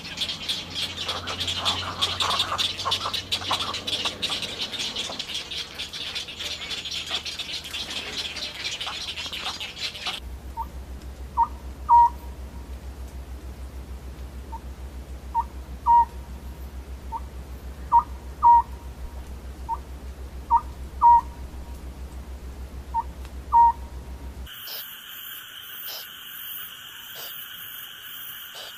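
Oriental scops owl calling at night: short clear hoots in pairs, repeated every couple of seconds over a low hum. It is preceded by about ten seconds of dense chatter from egret chicks at the nest. Near the end a steady high-pitched night chorus takes over.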